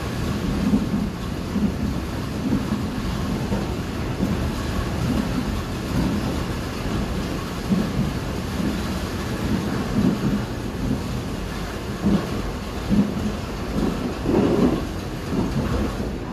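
Mugunghwa-ho passenger train running, heard inside the carriage: a steady low rumble with repeated low thuds about once a second and a louder swell about 14 seconds in, over the hiss of heavy rain.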